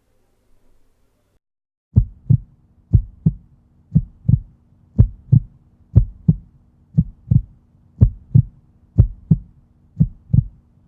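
Heartbeat-like double thumps, lub-dub, repeating about once a second over a faint steady hum, starting about two seconds in.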